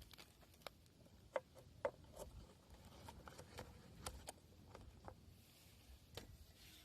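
Faint, irregular light clicks and taps of small hard objects, with two short ringing clinks about one and a half and two seconds in.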